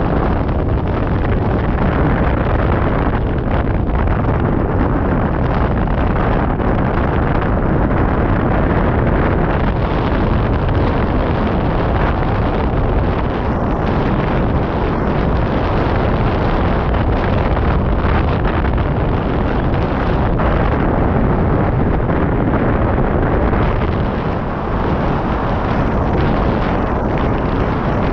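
Steady loud rush of wind across a GoPro microphone on a hang glider in flight, a dense low roar that hardly changes.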